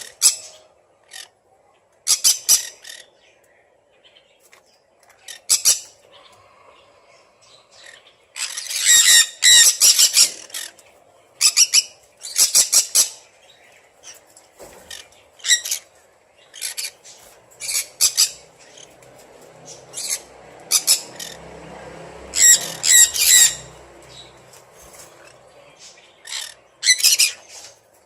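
Pet green-cheeked conures giving short, harsh squawks again and again, in clusters a second or two apart, loudest about nine seconds in and again about twenty-two seconds in.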